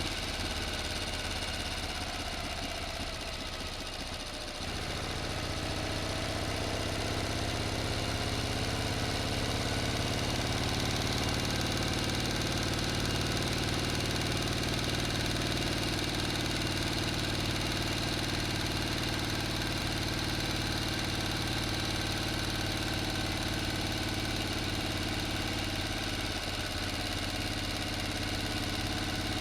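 Engine running steadily. It dips briefly about four seconds in, then picks up speed slightly and holds an even run.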